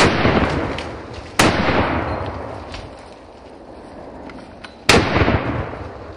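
Three rifle shots fired at a charging elephant in self-defence, the second about a second and a half after the first and the third some three and a half seconds later, each followed by a long rolling echo.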